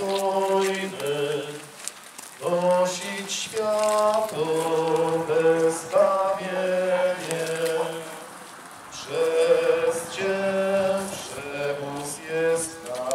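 Group of people singing a slow church hymn, held notes stepping from one pitch to the next, with a brief pause between phrases about two-thirds of the way through.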